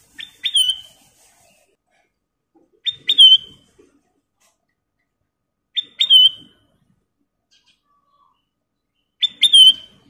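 Kutilang emas (black-crested bulbul) in a cage, giving four short, sharp calls about three seconds apart. Each call is two quick notes that end in a brief clear whistle.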